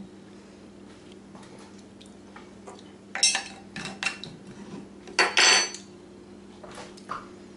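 A few sharp clinks and knocks of a metal spoon and a bottle being handled. The loudest comes about five seconds in: the spoon clattering down on a wooden table and ringing briefly.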